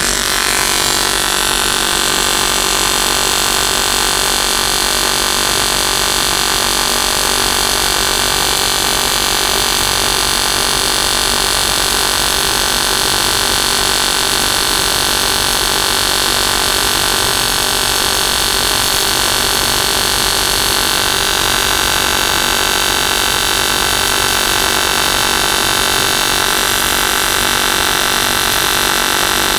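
AC TIG welding arc on aluminum from an AHP AlphaTIG 200 at 155 amps with pulse off: a steady, unbroken buzz over a hiss.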